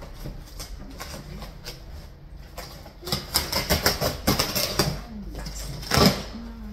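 Scissors slitting the packing tape along the top seam of a cardboard shipping box: a quick run of scratchy cuts lasting about two seconds, then a louder tearing rip about six seconds in as the box flaps are pulled open.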